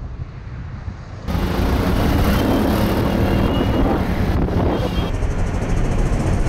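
Motorcycle riding through traffic, its engine mixed with wind rushing over the microphone. The sound jumps much louder about a second in.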